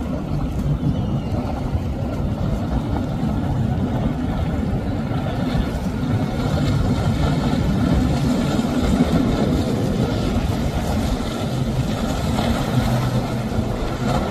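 Outboard motors of a Boston Whaler centre-console boat running at speed: a steady low drone mixed with rushing water from the hull and wake, growing slowly louder as the boat comes closer.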